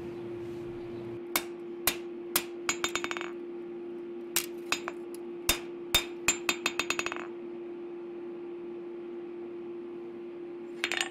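Hand hammer forging a red-hot steel knife blank on an anvil to set the plunge line. Single ringing blows about half a second apart, each run ending in a quick flurry of lighter taps, then a pause of a few seconds and two more blows near the end, over a steady hum.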